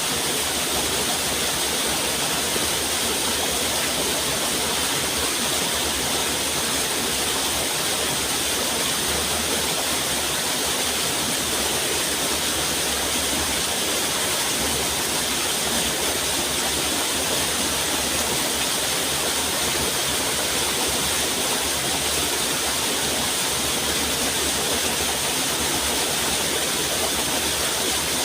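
Steady rushing water, an even unbroken hiss that does not change.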